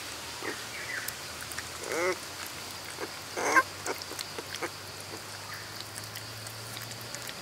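Puppies whimpering: a few short, wavering high cries, the loudest about three and a half seconds in, with light clicks and scratches between them.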